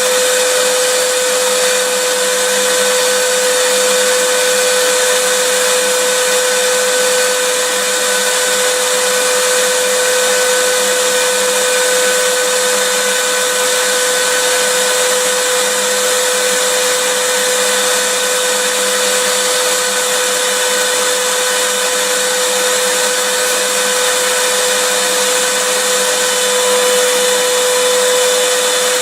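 Vacuum cleaner running steadily: an even rushing of air over a constant motor whine, with no change in speed.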